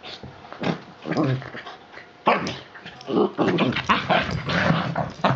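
Two dogs play-fighting, with growls and yips in quick irregular bursts that grow busier about halfway through.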